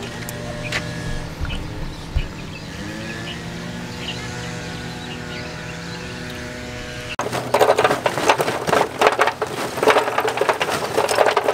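A steady low drone with several held tones that shift slowly in pitch. About seven seconds in it cuts off suddenly and gives way to the louder, irregular rustling and crinkling of a plastic bag of hardwood charcoal being handled over a barbecue pit.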